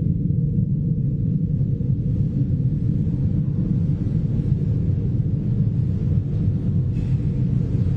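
Steady low rumbling drone, unchanging.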